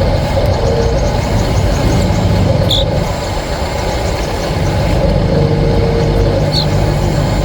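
Radio-controlled model construction vehicles running: a steady mechanical rumble with a motor whine that comes and goes, and two short high squeaks.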